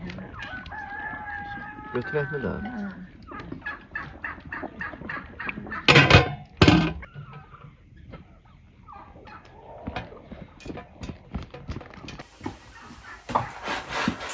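Farmyard poultry calling: a drawn-out warbling call in the first few seconds, then many short, sharp clucks. Two loud knocks come close together about six seconds in.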